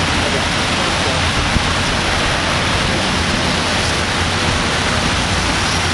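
Electric hair clippers buzzing with a low hum while shaving a head, under a loud, steady hiss.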